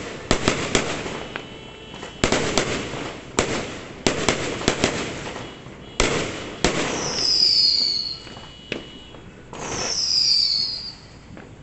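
Fireworks going off: a run of sharp bangs in quick clusters, followed twice by a hissing burst with a whistle that falls in pitch, each lasting a second or two.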